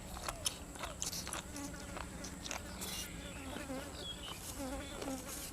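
Close-up eating sounds: chewing grilled cuttlefish and raw vegetables, with irregular wet crunching clicks and smacking.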